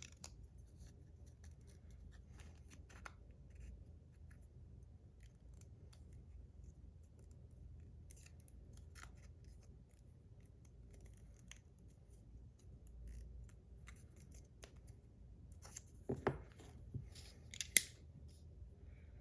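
Scissors cutting and trimming adhesive tape: faint, scattered snips and small clicks, with a louder run of snips near the end.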